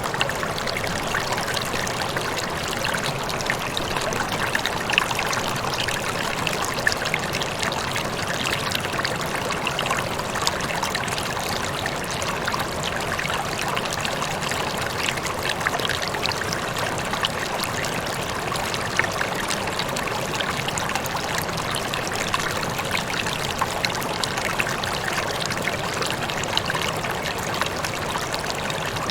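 Rippling water flowing steadily, a continuous trickling babble scattered with small bright splashes and drips.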